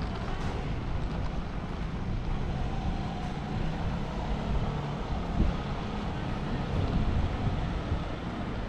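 City street ambience: a steady low rumble of traffic, with wind buffeting the microphone.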